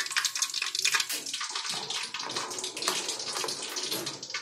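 Hot oil sizzling and crackling in a pot as ajwain and fenugreek seeds fry in it, a dense hiss full of fine pops.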